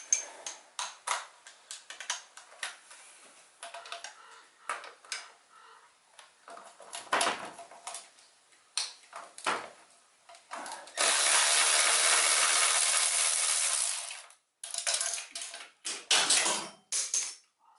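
Hand tools working on a truck engine: a run of irregular metal clicks, taps and knocks as sockets and a ratchet are handled. Midway through, a loud, steady hiss lasts about three seconds and stops abruptly.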